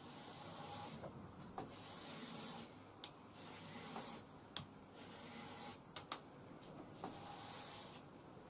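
Puukko knife blade stroked across a micromesh abrasive strip, a faint scraping hiss in about four slow strokes, with light clicks between strokes as the blade is turned or lifted.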